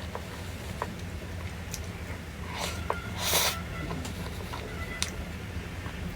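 Eating sounds: small scattered clicks and crunches of chewing, with a short hissing rustle about three seconds in, over a steady low hum.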